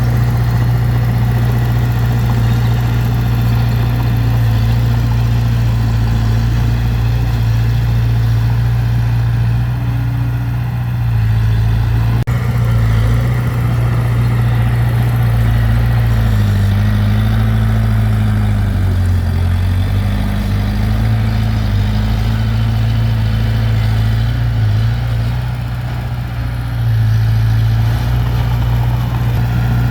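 Diesel engine of heavy earthmoving machinery running steadily, its pitch dipping briefly and coming back up about two-thirds of the way through.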